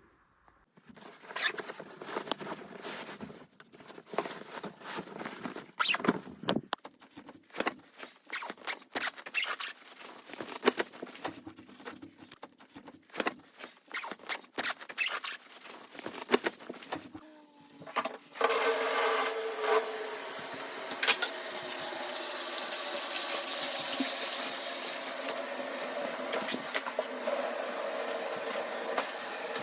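Scattered clicks and knocks of handling, then about 18 seconds in a bathtub tap is opened and hot water runs steadily into the tub, filling it.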